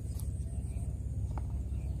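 Outdoor ambience: a steady low rumble under a thin, steady high tone, with a couple of faint clicks.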